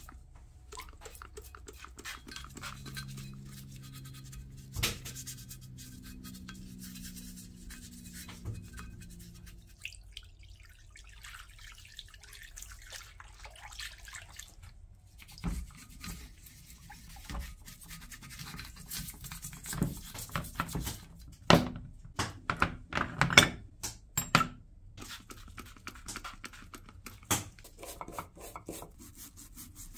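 Brush scrubbing wet, rusty metal parts, a cast housing and then a gear assembly, in scattered scratchy strokes. A low steady hum runs for several seconds near the start, and sharp louder knocks and clicks come between about 15 and 24 seconds in.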